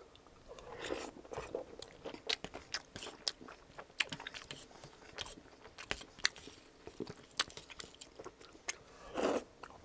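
Close-miked chewing of a mouthful of chicken enchilada with a crunchy topping: many small wet clicks and crunches. A knife and fork scrape the dish now and then, and there is a short vocal sound near the end.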